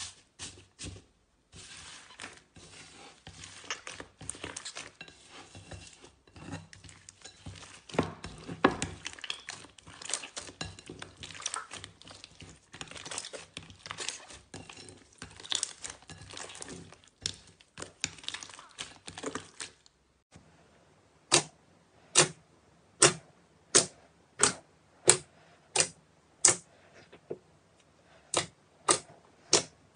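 Slime squished and kneaded by hands in a glass bowl, giving a dense, continuous crackling and crinkling. About two-thirds of the way through it stops and gives way to a steady series of sharp pops, about one or two a second, as glossy slime full of air pockets is pressed.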